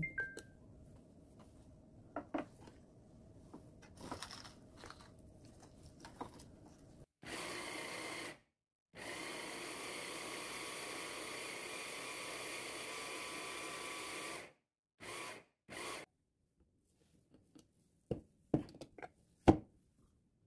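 Braun hand blender with its chopper attachment grinding cooked chicken breast and tofu: the motor whines in a short burst, then runs steadily for about five seconds, then gives two short pulses. A few sharp knocks follow near the end as the chopper bowl and a stainless steel bowl are handled.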